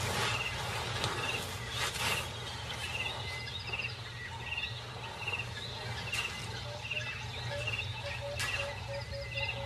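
Hippos grunting and snorting over a steady low rumble. A short high chirp repeats about once a second, and a run of quick lower notes comes near the end.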